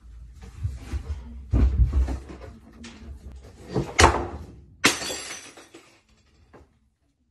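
Items being knocked about inside a kitchen cupboard by a dog, with bumps and clatter, a sharp knock about four seconds in, and then a loud crash about five seconds in as a container of ground coffee falls and hits the tiled floor.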